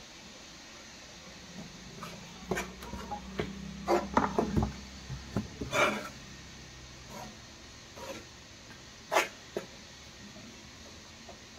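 Hands mixing wheat flour into mashed jackfruit in a metal bowl, with scattered clinks and knocks of a spoon against the bowl, busiest in the first half.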